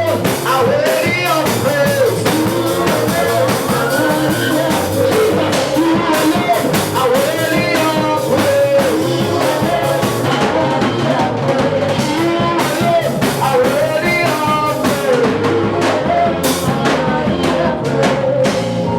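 Up-tempo worship music with a drum kit, guitar and bass under singing voices.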